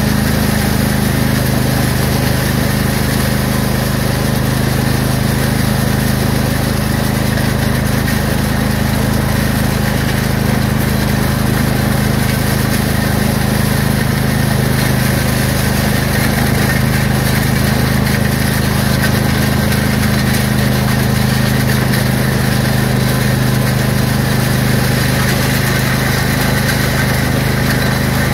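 Craftsman lawn tractor engine running at a steady speed while towing a land plane over a gravel driveway.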